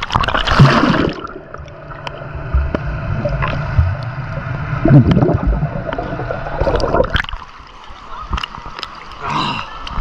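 Pool water splashing and sloshing against a half-submerged action camera, with a loud splash near the start, then muffled underwater gurgling and bubbling while the camera is under the surface.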